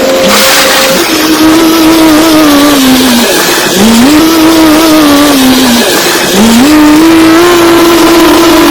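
Komatsu bulldozer's diesel engine revving up and down under load, its pitch rising, holding and falling again about three times, over a constant rattling noise.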